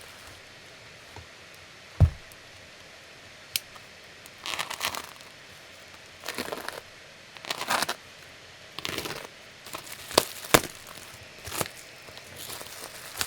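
Product packaging being opened by hand: a thump about two seconds in, then several short bouts of crinkling and tearing, and a few sharp clicks near the end.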